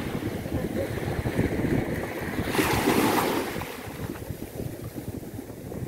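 Sea waves breaking on a beach: a wave surges and hisses about two and a half seconds in, then washes back and fades. Wind buffets the microphone with a low rumble throughout.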